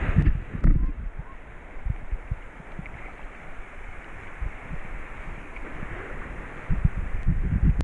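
Shallow sea water sloshing and lapping close to the microphone, with wind buffeting the microphone in low rumbling gusts. The gusts are heaviest near the start and again near the end.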